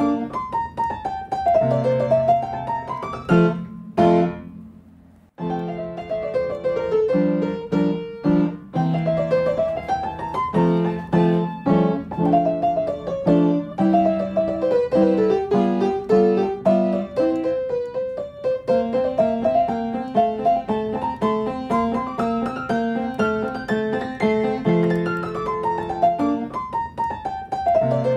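Background music: quick runs of notes falling and rising over low held notes, breaking off briefly about four seconds in.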